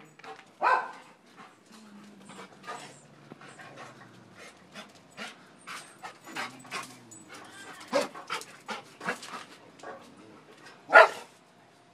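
Dog panting in quick, irregular breaths, with two louder sharp sounds, one about a second in and one near the end.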